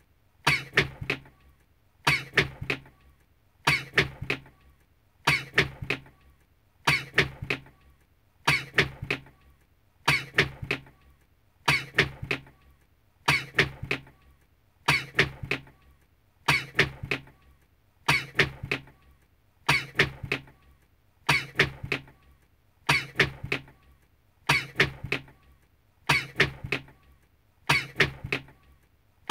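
A man's sneeze, one recording looped over and over at an even pace, each repeat a sharp burst with near silence between.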